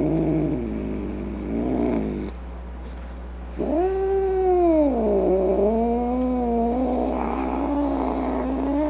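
Angry cat yowling: a drawn-out cry falling in pitch, a short lull, then a long wavering yowl that rises, sinks and turns rougher near the end.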